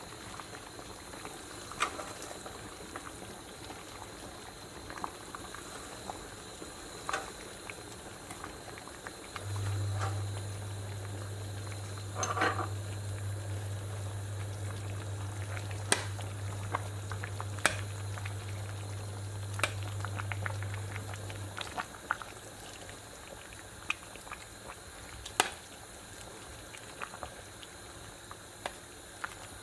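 Pot of borscht bubbling on the stove, with scattered clicks and knocks of kitchen utensils. A low steady hum starts about ten seconds in and stops about twelve seconds later.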